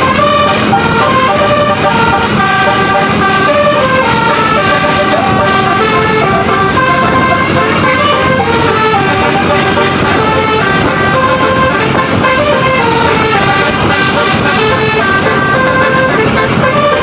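Basuri telolet horn on a tour bus, a multi-tone musical horn, playing a continuous melody of short stepped notes.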